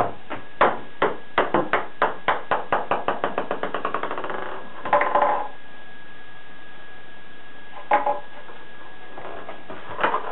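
Ping pong ball bouncing in a bath tub, the bounces coming quicker and quicker until it settles about four and a half seconds in. Then it is knocked about again in a few short clusters of taps.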